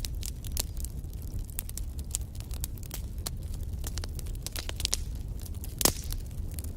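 Log fire crackling in a fireplace: frequent sharp pops and snaps over a low rumble of the flames, with one louder pop near the end.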